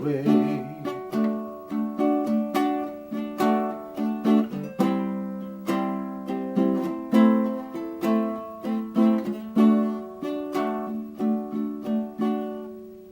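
Baritone ukulele played solo in the closing bars of the song: a steady run of plucked chord notes, each ringing on, until the final chord dies away near the end.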